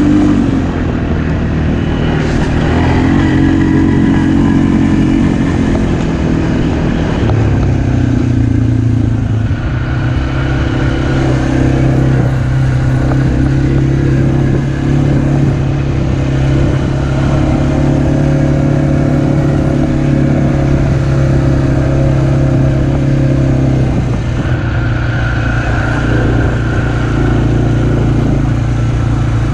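Kymco MXU 450 ATV engine running to warm the oil before an oil change. The revs rise and fall in the first few seconds, then hold steady.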